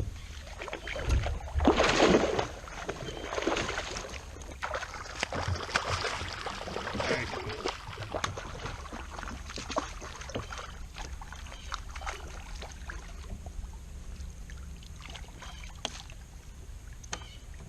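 Kayak paddle dipping and splashing through the water in irregular strokes, the loudest splash about two seconds in.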